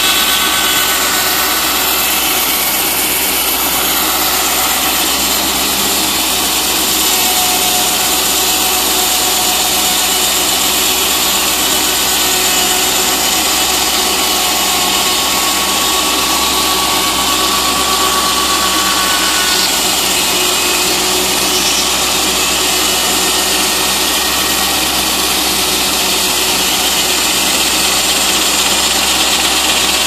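American Model #1 sawmill running: its large circular head saw cutting through a log on the carriage, making a loud, steady mechanical din with faint whining tones that drift slightly in pitch.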